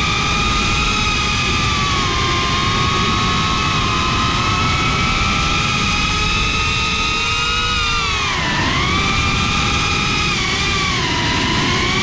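FPV quadcopter's electric motors and propellers whining steadily, the pitch dipping sharply about eight seconds in and again near the end as the throttle eases off. A low rush of wind noise lies underneath.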